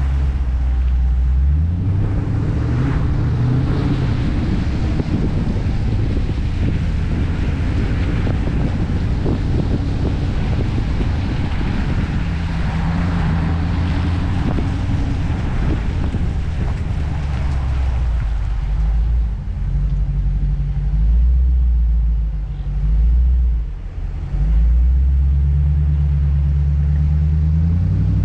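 Dodge Challenger R/T's 5.7-litre HEMI V8 pulling the car uphill with a deep, steady drone. The engine note rises about a second in and again near the end, and drops briefly a few times in the last third as the throttle eases. A steady hiss runs over it.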